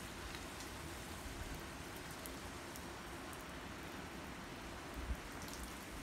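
Small rock waterfall splashing steadily into a pond, running full after rain. A brief low thump about five seconds in.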